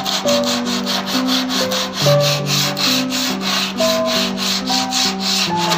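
Hand sanding of a carved wooden tray with sandpaper: a rasping rub repeated at about four or five strokes a second. Background music with a slow melody plays under it.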